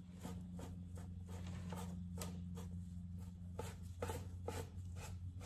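A rigid piece of sponge dabbed and skimmed over the wrinkled surface of a latex mask, a run of short scratchy strokes about three a second, over a steady low hum.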